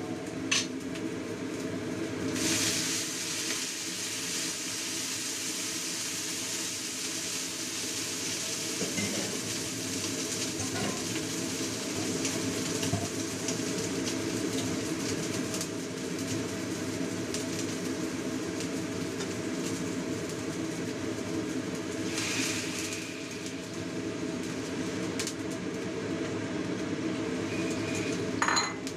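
Pork trotter and chicken pieces frying in a wok, a steady sizzle over a constant low hum. A metal spatula or strainer clinks against the wok twice at the start and again near the end.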